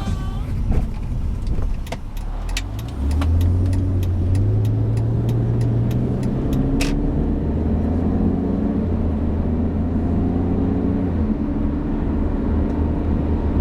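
BMW 330ci ZHP's inline-six pulling away on a test drive: the engine note comes in about three seconds in and climbs, drops back around the middle as it shifts, then runs steadily. A run of sharp ticks sounds through the first half.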